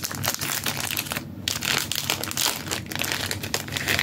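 Foil wrapper of a Pokémon TCG booster pack crinkling as it is handled, with a short pause about a second in.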